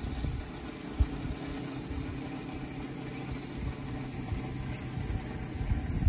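Wind buffeting the microphone outdoors: a steady, gusty low rumble, with a single thump about a second in.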